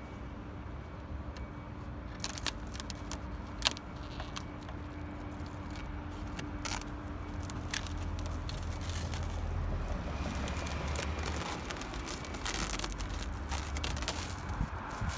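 Scattered sharp clicks and knocks of hands working plastic and metal parts on a vehicle, over a steady low hum.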